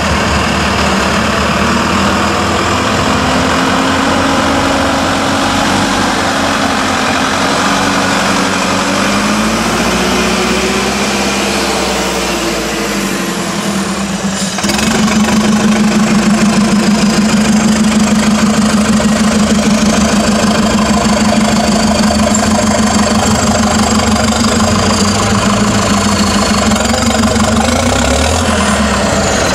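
Avia trial truck's diesel engine working hard over steep off-road ground. Its pitch rises and falls in the first half, then about halfway through it holds a steady, louder drone, puffing black smoke under load.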